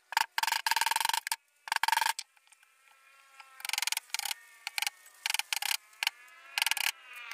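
Claw hammer driving nails into a wooden frame: sharp ringing strikes in quick bunches, with short pauses between.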